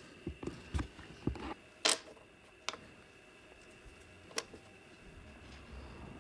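Several light knocks in quick succession, then three sharp clicks spaced well apart, over a faint steady hum: small tools or parts being handled and set down on a workbench.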